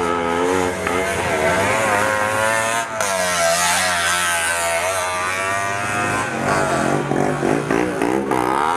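Auto-rickshaw engine revving, its pitch rising and falling again and again.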